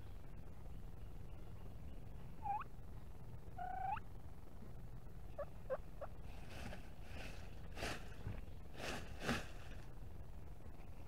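Wild turkey calling: two short pitched calls, about two and a half and four seconds in, then three quick clucks. These are followed by a run of scratchy rustling bursts over the next few seconds.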